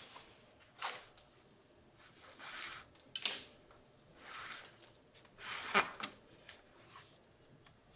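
Thread being drawn through the leather welt and insole during hand welting: a series of about five short rasping swishes, roughly one a second, the loudest near the middle and about three quarters of the way in as stitches are pulled tight.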